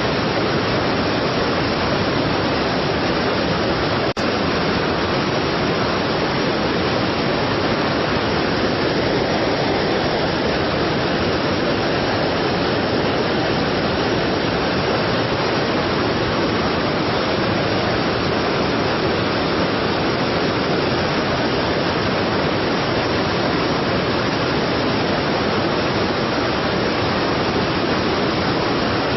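Strong waterfall, water pouring and rushing in a steady, dense roar, with one brief click about four seconds in.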